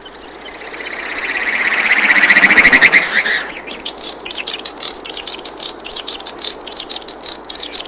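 Sound effect of a fast-pulsing, high buzz that swells loud over about three seconds and then cuts off, giving way to a rapid run of sharp, high chirps.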